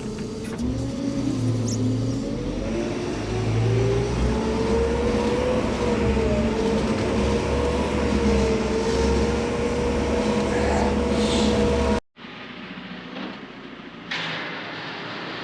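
Engine of a telehandler working machine revving up over the first few seconds and then held at steady high revs with a low rumble, as it strains to drag a heavy steel ramp. The sound cuts off abruptly about twelve seconds in, leaving quieter yard noise with a few knocks.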